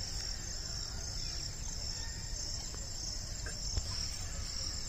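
Insects chirring in a steady, high, unbroken drone over a low background rumble.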